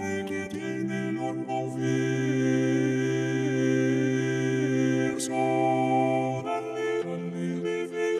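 Four-part Renaissance vocal music in Italian, sung entirely by Vocaloid synthesized voices. Long held chords, with one voice moving beneath them, a brief sharp 's'-like consonant about five seconds in, and chord changes near the end.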